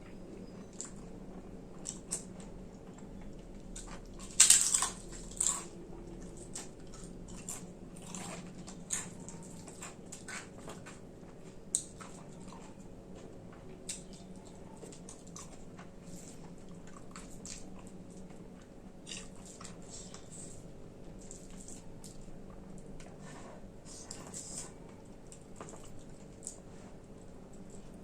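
Close-miked eating of khichdi: chewing and mouth sounds with scattered short, crisp crunches, the two loudest a few seconds in.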